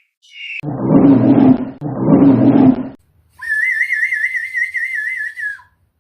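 Two rough animal calls of about a second each, followed by a steady, warbling whistle lasting about two seconds.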